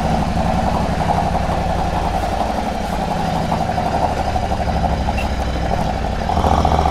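Royal Enfield 650's 648 cc parallel-twin engine running as the motorcycle rides off at low speed, getting louder a little over six seconds in as it picks up throttle.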